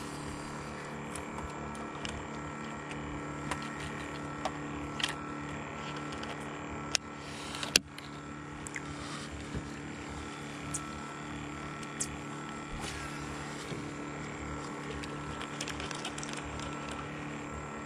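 Boat motor running steadily as a low hum with a few held tones, under scattered clicks and knocks from the baitcasting rod and reel being cast and retrieved; the sharpest knocks come about seven to eight seconds in.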